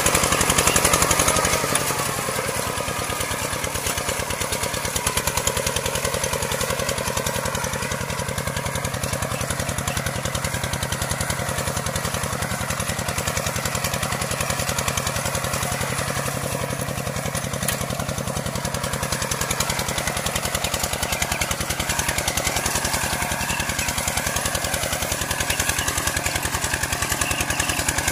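Kubota walk-behind tractor's engine running steadily under load, pulling a plow through soil, with an even rapid firing beat. It is slightly louder for the first second or so, then settles.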